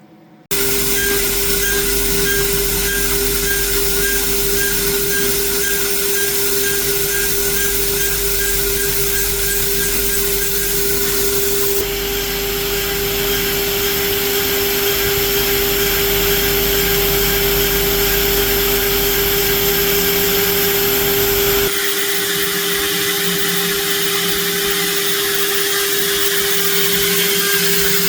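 PrintNC Pro CNC router spindle running at a steady pitch while milling a 6061 aluminium hex nut, over a noisy cutting hiss. The cutting sound changes about 12 seconds in and again about 22 seconds in as the toolpath moves on.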